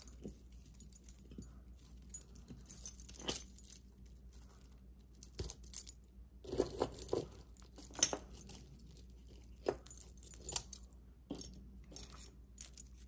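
Pieces of metal costume jewelry clinking and jingling as they are picked through and handled: irregular light clicks and jingles, busiest about halfway through.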